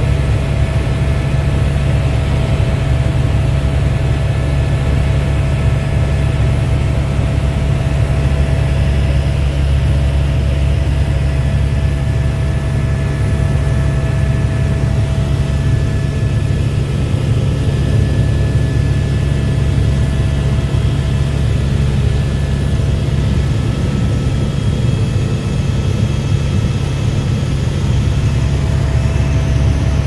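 Helicopter turbine and main rotor heard from inside the cabin: a steady, loud low drone with a faint steady whine above it.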